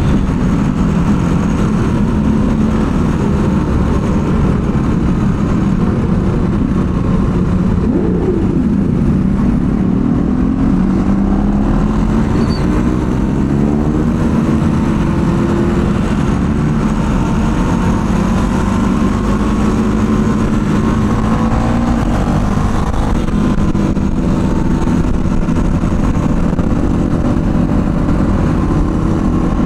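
Motorcycle engine running while riding, its pitch rising and falling several times with the throttle, over a steady low rumble of wind.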